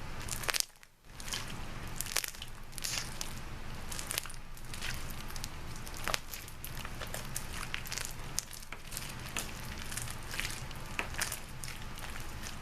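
Sticky Play-Doh popcorn slime being squished and pulled between the hands, giving a steady run of small crackles and wet clicks, with a brief pause about a second in. The slime is sticking to the fingers, which the maker suspects means it is underactivated.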